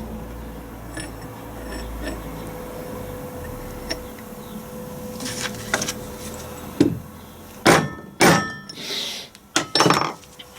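Hammer blows on a steel drift, knocking a stubborn bearing out of a Land Rover LT230 transfer box casing: light taps at first, then several harder ringing metal strikes in the last few seconds. The bearing is held tight and hardly gives.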